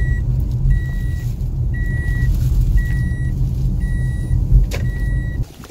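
Car cabin rumble from engine and road at speed, with a high electronic warning beep from the car repeating about once a second, six times.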